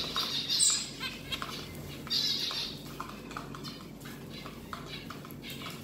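Small pet birds pecking seed from a hand, with many light quick taps, and a couple of short high chirps.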